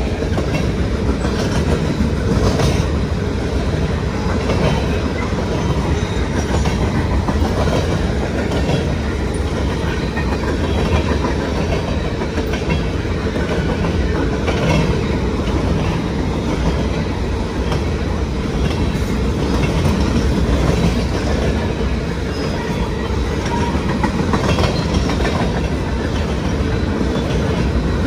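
Freight train of covered hopper cars rolling steadily past: a continuous rumble of steel wheels on rail, with scattered clicks as the wheels cross rail joints.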